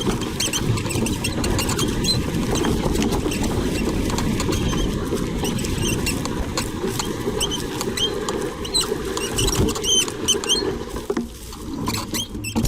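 Ahead headset of a 1990s Bianchi Osprey rigid steel mountain bike squeaking: many short, high chirps at irregular intervals over a steady low rumble. The squeak comes from a very dry rubber headset seal and dirty headset bearings.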